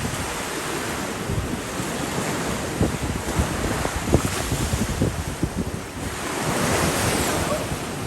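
Wind buffeting the microphone over surf washing onto the beach, the wash swelling and fading in slow waves.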